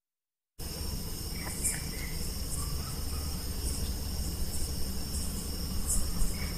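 Silence for about half a second, then steady background noise of insects chirping over a low hum, with a few brief higher chirps scattered through it.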